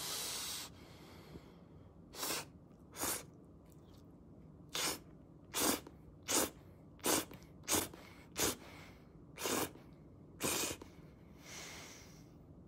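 A person slurping noodles from chopsticks: a short suck at the start, then about ten quick separate slurps.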